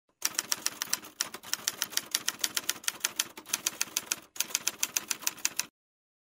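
Typewriter keys clacking in a rapid, even run of about seven strokes a second, with two short breaks, as text is typed out; it stops suddenly shortly before the end.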